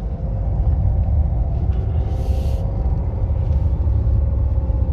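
Fiat Toro pickup driving, heard from inside the cab: a steady low rumble of road and engine noise, with a brief hiss about two seconds in.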